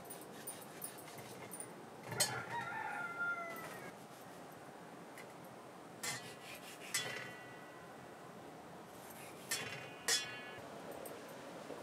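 A rooster crowing once, a drawn-out call of about two seconds starting about two seconds in. A few short sharp clicks follow later.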